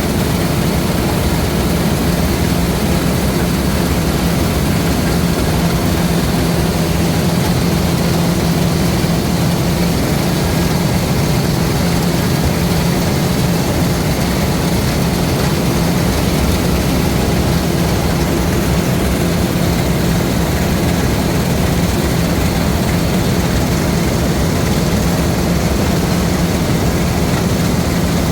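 LOVOL RG130 EVO rice combine harvester running steadily: a constant engine drone with a low hum and an even mechanical whir that does not change.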